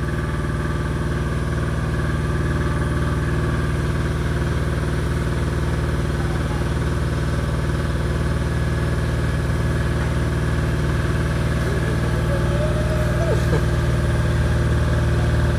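An engine or motor running steadily, making an even, unchanging drone. About twelve seconds in, a short higher call rises and then falls.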